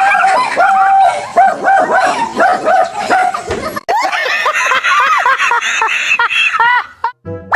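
Dogs barking and yelping in quick, high-pitched calls, with a sudden change to a different dog's rising and falling yelps about four seconds in.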